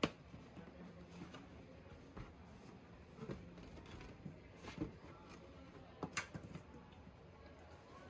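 Box and packaging being handled during an unboxing: a sharp knock at the very start, then scattered soft taps and rustles, with a short cluster of clicks about six seconds in.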